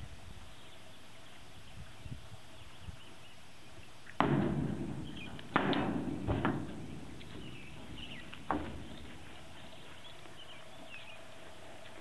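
A horse's hooves striking the floor of a stock trailer: four heavy thuds, each with a ringing tail, between about four and eight and a half seconds in.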